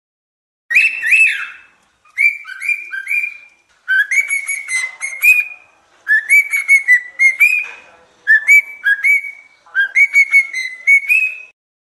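Cockatiel whistling: six runs of short, clear whistled notes, many sweeping upward, separated by brief pauses.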